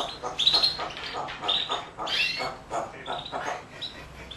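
Pet parrot chattering and squawking in a quick run of short, shrill calls, several a second, some rising in pitch.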